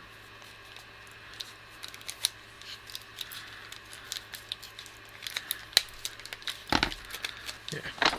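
Plastic bag crinkling and rustling as it is handled, with scattered small clicks and a heavier rustle a little after the middle.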